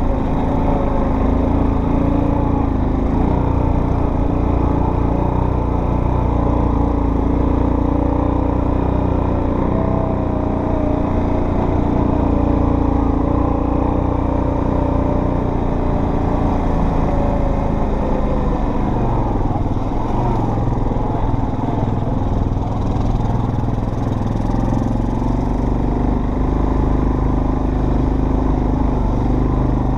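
Off-road vehicle engine running steadily under way, its pitch shifting a little as the throttle changes.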